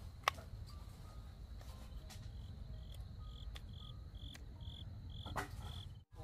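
A cricket chirping in a regular series of short high chirps, about three a second, starting about two seconds in, over a low rumble. A single sharp click sounds shortly after the start.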